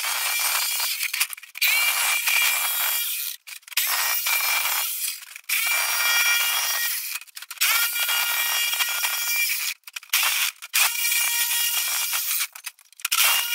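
Makita jigsaw cutting through steel plate: the blade rasps with a high whine over it, in stretches of one to two seconds that stop and start several times.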